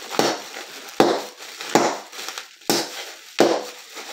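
Plastic air-pillow packing cushions being squeezed and twisted by hand, crinkling and crunching in five sharp bursts about a second apart.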